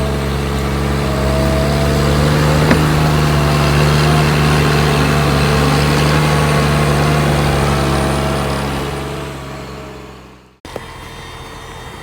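An engine running steadily, loud at first, fading away from about eight seconds in and then cut off abruptly, leaving quieter background.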